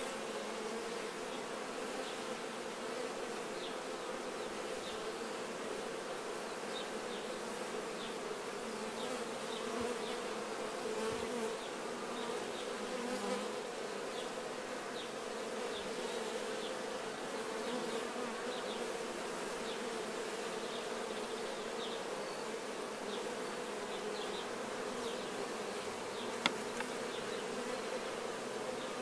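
Honey bees buzzing, a steady even hum of many bees. A single sharp click sounds near the end.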